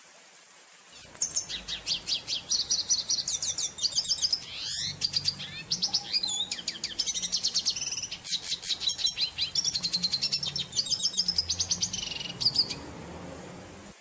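Red siskin singing a long, fast twittering song of rapid high chattering and trilled notes, starting about a second in and stopping shortly before the end.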